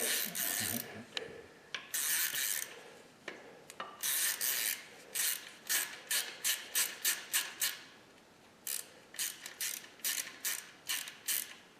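Hand ratchet wrench clicking in runs of short, even strokes, about three a second, as a fastener is turned on the engine.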